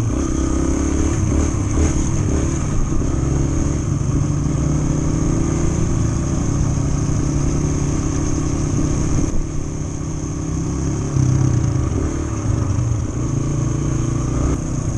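Yamaha TT-R125 trail bike's single-cylinder four-stroke engine running at steady cruising throttle, heard close up from the bike itself, with a brief drop in engine level about two-thirds of the way through before picking up again.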